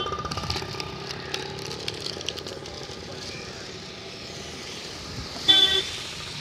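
A vehicle horn toots once, briefly, about five and a half seconds in, over a steady hiss of rain and traffic on a wet road.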